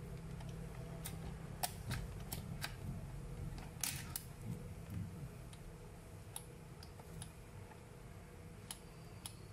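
Handling noise as adhesive tape is threaded into a ZCUT-10 rotary tape dispenser: scattered light clicks and taps of the tape and the machine's plastic parts, busiest between about one and five seconds in, over a low steady hum.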